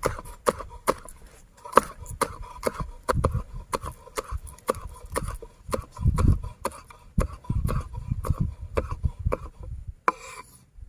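Irregular clicks and knocks with low thuds, a few strokes a second, over a faint steady tone. There is a short hiss about ten seconds in.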